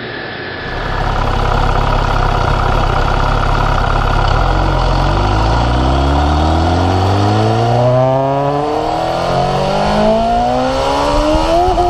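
MV Agusta F4 RR superbike's inline-four engine pulling hard under full throttle. Its pitch climbs steadily as the bike accelerates, and it drops briefly for an upshift near the end, over a rush of wind noise.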